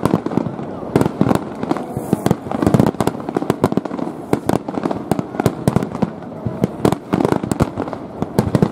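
Aerial fireworks bursting in a dense, unbroken barrage of bangs and crackles, many shells a second.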